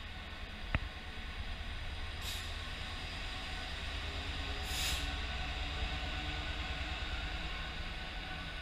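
A Freightliner Class 66 diesel locomotive and its open freight wagons pass close by with a steady low engine rumble, loudest about five seconds in as the locomotive draws level. Two short hisses come about two and five seconds in.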